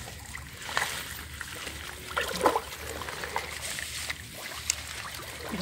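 Water sloshing and trickling as a person wades chest-deep and pulls at water hyacinth plants, with a few short splashes about a second, two and a half and nearly five seconds in.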